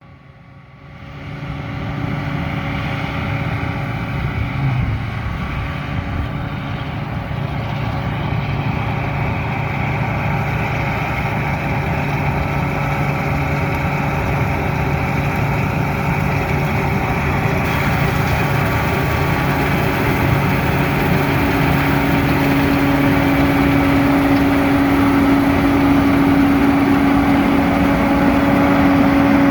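A combine harvester running steadily, its engine and threshing machinery giving a continuous hum. The sound fades in over the first second or two, and in the last several seconds the deeper hum gives way to a stronger, higher one.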